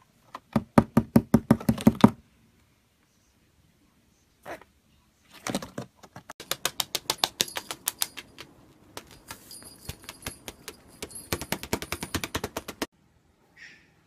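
Rapid runs of sharp taps from a pet parrot, several a second, in two long bursts with a single tap between them. A brief faint high chirp comes near the end.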